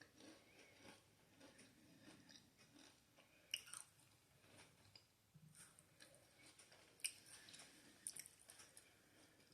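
A person chewing a soft vanilla cream-filled cookie, faint, with a few sharper crunches.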